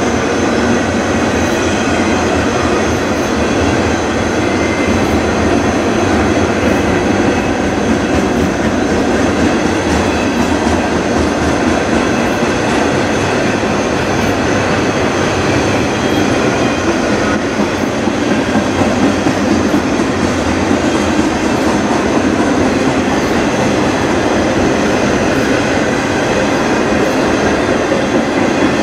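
Freight train of autorack cars rolling past close by: a loud, steady noise of steel wheels on rail that holds at the same level throughout.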